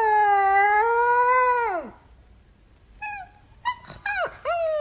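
Husky-type puppy howling. A long, wavering howl drops in pitch and breaks off about two seconds in. A few short whimpers follow, then a new howl starts near the end.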